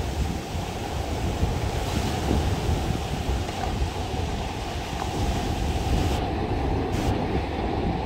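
Small sea waves breaking and washing up a sandy beach in a steady surf wash, with wind buffeting the microphone as a low rumble.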